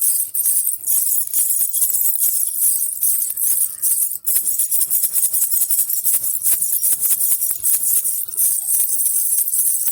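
Baby rattle (jhunjhuna) with small jingle bells, shaken steadily in a fast, continuous jingling rattle, with a brief break about four seconds in.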